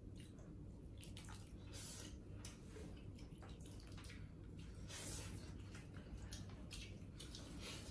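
Faint wet eating sounds: dal spooned onto rice and fingers mixing rice, dal and pork curry on the plates, with scattered small clicks and squishes over a faint steady low hum.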